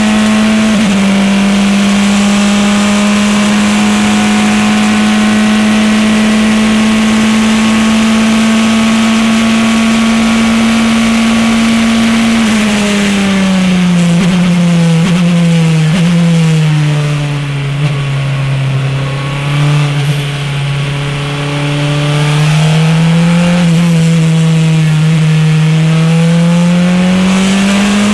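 Praga R1T racing prototype's turbocharged four-cylinder engine heard from inside the cockpit, flat out on a steady high note with a quick upshift about a second in. From about twelve seconds in, the driver lifts off and the pitch falls through downshifts to a lower, quieter note through the corner. It then rises again under hard acceleration.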